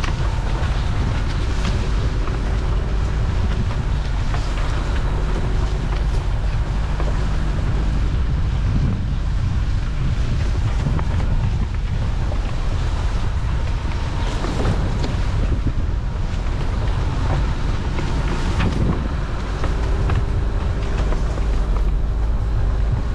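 Dacia Duster driving along a rough green lane: a steady low rumble of engine and tyres, with wind buffeting the camera microphone and a few knocks from the lane surface or the vehicle.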